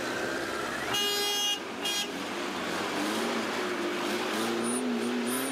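Vehicle horn sounding twice in street traffic: a blast of about half a second, a second in, then a short toot just before two seconds.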